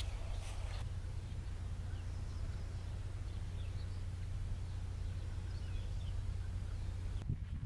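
Quiet rural outdoor ambience: a steady low rumble with faint, scattered bird chirps, and a couple of light clicks near the start.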